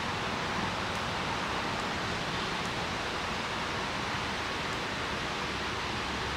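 Steady, even hiss of background noise, with no distinct events.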